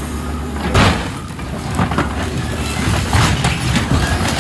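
A scrap material handler's engine runs steadily while its orange-peel grapple slams down onto a school bus about a second in, followed by further metal crunches and clanks as it crushes into the bus roof.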